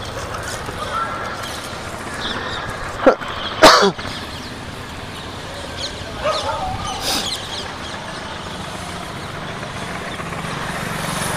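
Street traffic noise, with two short loud sharp sounds about three seconds in and a vehicle running closer near the end.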